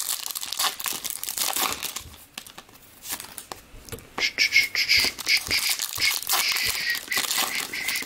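Foil trading-card pack wrappers crinkling and tearing as Topps Finest baseball packs are opened and the cards slid out, in irregular crackles with a quieter spell about two seconds in.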